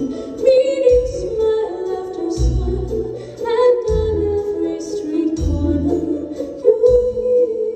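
Live Christmas stage-show music over a theatre sound system: a woman singing over a band, with a low bass note sounding about every second and a half.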